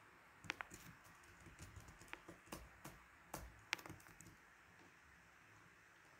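Faint computer keyboard typing: irregular keystrokes for about four seconds, then they stop.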